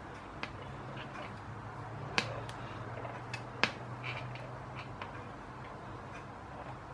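Metal palette knife clicking against the buttercream bowl and cake stand while spreading buttercream on a cake: a few sharp clicks, the loudest about two and three and a half seconds in, over a faint low hum.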